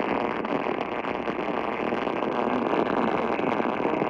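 Steady hiss of static from a radio broadcast carrying an emergency alert, with no clear words.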